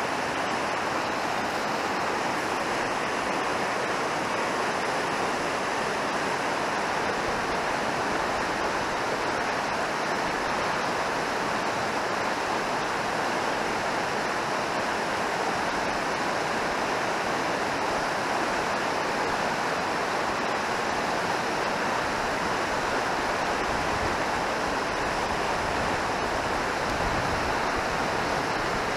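Fast mountain river rushing through whitewater rapids close by: a steady, unbroken rush of water.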